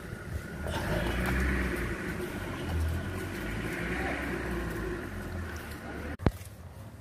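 Outdoor street ambience with a steady low rumble, ending in a single sharp click about six seconds in, after which the background drops and changes.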